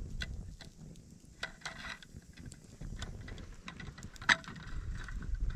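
Wood fire crackling with scattered small pops over a low rumble, and a sharper metallic clink about four seconds in as a pot gripper takes hold of a metal cooking pot.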